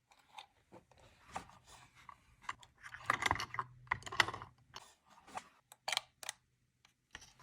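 Close-up handling sounds of a pen and its packaging: a run of small sharp clicks and short rustling scrapes, loudest in two clusters about three and four seconds in.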